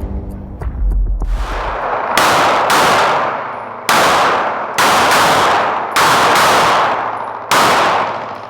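About eight 9mm pistol shots from a SAR 9X, fired at an uneven pace with some in quick pairs, each followed by a long echoing tail. A low rumble fades out in the first two seconds.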